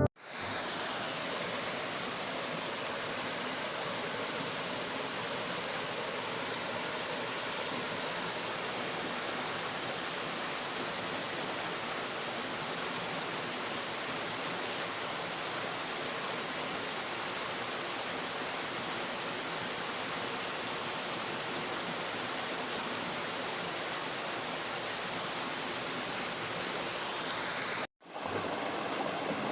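Waterfall water rushing in a steady, even roar. It cuts out for a moment near the end and comes straight back.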